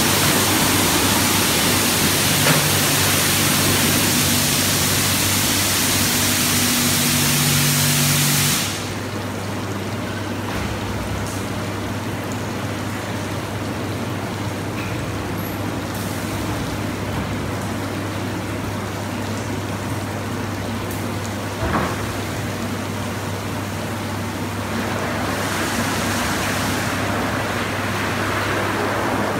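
Automatic rollover car wash running: a loud hiss of spraying water over a steady low machine hum. The hiss cuts off abruptly about nine seconds in, leaving the hum, and builds up again near the end.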